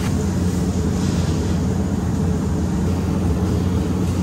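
A steady, loud low rumble, even and unbroken, like a running motor or gas burner.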